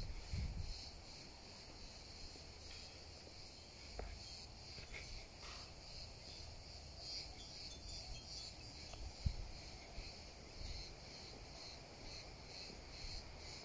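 Faint, high-pitched insect chorus in a steady pulsing rhythm, about three pulses a second. There is a soft knock about nine seconds in.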